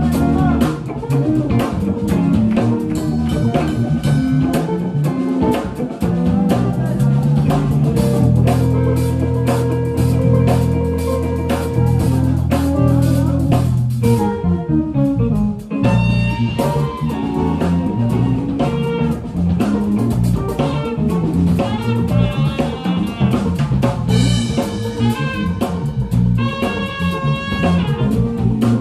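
Live jazz band playing: a drum kit keeps time while a guitar plays, with a melodic lead line coming in about halfway through.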